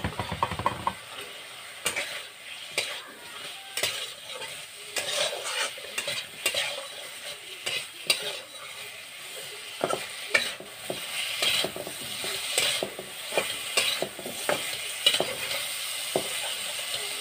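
Potato wedges frying in a little oil in a kadai, sizzling, while a spatula scrapes and clacks irregularly against the pan as they are stirred and turned. Over the last second or so only the steady sizzle is left.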